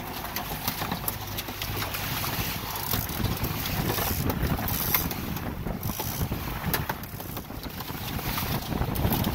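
Wind buffeting the microphone over the steady rush of water from a small outboard-powered boat running at speed.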